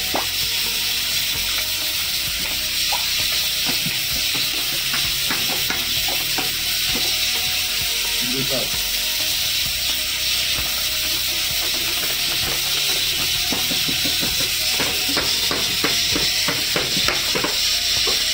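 A steady hiss, with scattered light clicks and taps that come thicker near the end. A voice is heard briefly about eight seconds in.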